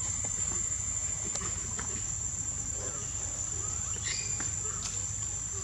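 Insects droning in a steady high-pitched chorus, with a few faint clicks and a short chirp about four seconds in.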